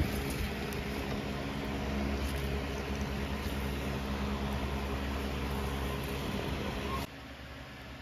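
A motor running steadily with a low, even hum, cutting off suddenly about seven seconds in.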